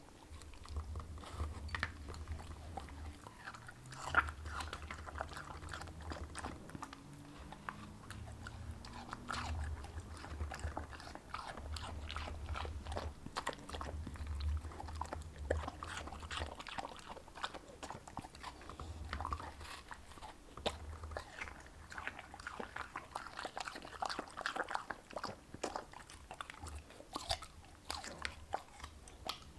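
A dog biting into and chewing juicy watermelon, a dense run of short, sharp bites and chews.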